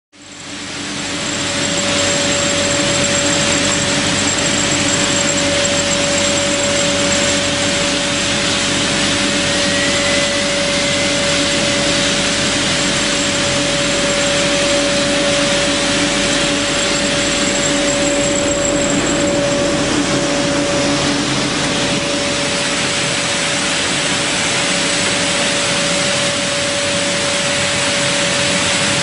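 Holytek MB-1100R4DD brush sanding machine running: a steady loud whir of motors and spinning brushes with a constant whine, rising from silence in the first second or two.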